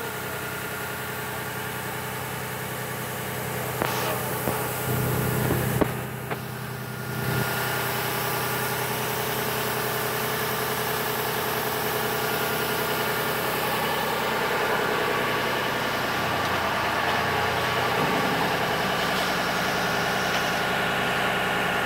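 Industrial machinery running with a steady hum made of several tones. A few knocks and a louder, deeper stretch come about four to seven seconds in.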